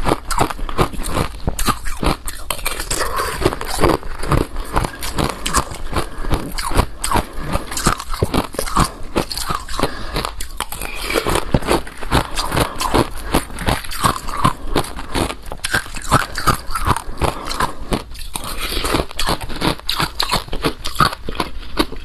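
Close-miked crunching as balloon ice is bitten and chewed: a dense, irregular run of sharp cracks and crunches that keeps going without pause.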